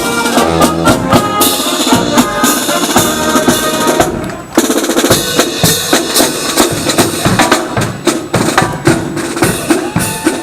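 Music led by drums, with regular drum hits under pitched instruments; it dips briefly about four seconds in.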